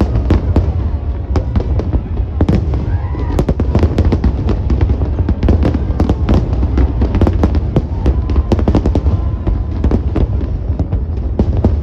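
Large fireworks display going off in a continuous barrage: many sharp bangs and cracks in quick, irregular succession over a steady low rumble.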